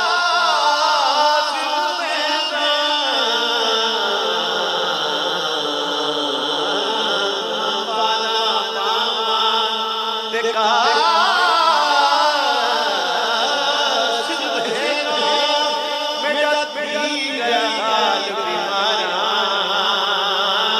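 A male naat reciter sings a Punjabi kafi-style naat into a microphone, unaccompanied. He draws out long, ornamented notes with a heavy wavering vibrato, and a new phrase starts about halfway through. A steady low drone sounds underneath.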